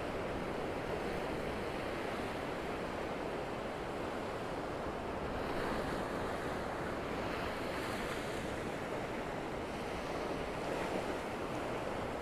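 Gentle Gulf surf washing onto the beach, a steady wash that swells slightly a few times, with light wind on the microphone.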